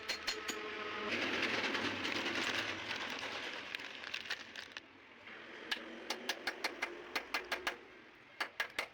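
Rapid, evenly spaced sharp clicks or taps, about four a second, broken in the middle by a few seconds of harsh rasping noise.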